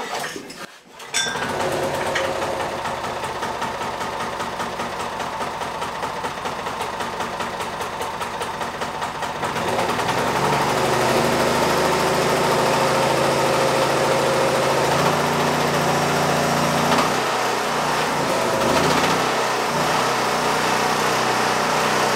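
Kubota engine of a walk-behind lawn aerator starting about a second in and running steadily, faster and louder from about ten seconds in. It exhausts through a newly fitted, larger Vespa scooter muffler, which the owner reckons makes it about 50% quieter.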